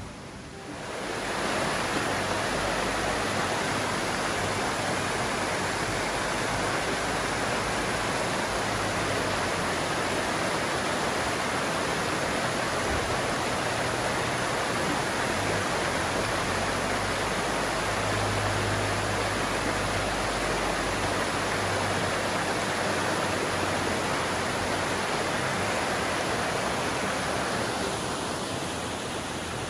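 Mountain stream rushing over rocks and small rapids: a steady rush of water that swells up about a second in and eases slightly near the end.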